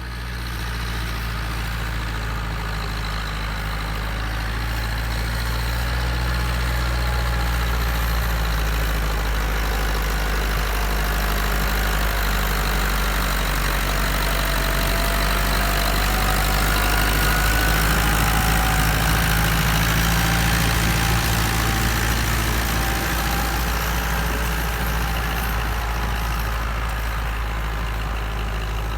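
Massey Ferguson 274S tractor's four-cylinder diesel engine running steadily, swelling a little in the middle and easing slightly near the end.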